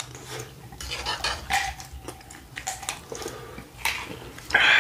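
Close-miked eating: taco salad with tortilla chips being chewed, and a fork clinking and scraping on the plastic serving tray. The sound is a run of short, irregular clicks, loudest near the end.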